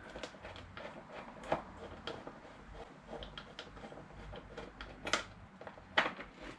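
Light, scattered clicks and small knocks from tools and bolts being handled while the front mudguard is worked free of the fork legs, with three sharper knocks about one and a half, five and six seconds in.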